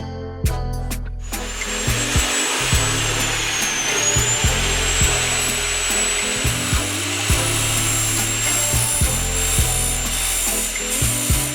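Bosch GCO 240 abrasive metal cut-off saw starting up about a second in and running, a high whine over a grinding hiss, its pitch dipping briefly near four seconds in. Background music with a steady beat plays under it.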